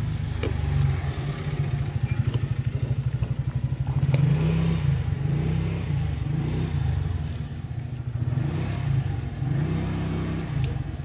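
A motor engine running with a low, rapidly pulsing rumble that swells and eases.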